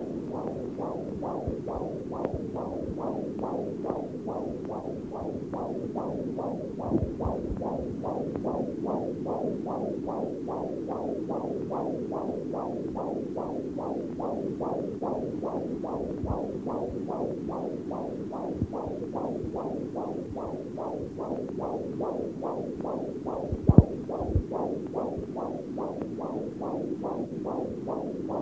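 Electronic sound-design pulse, an even throbbing of about two beats a second, with a few deep thumps laid over it, the loudest a little after three-quarters of the way through.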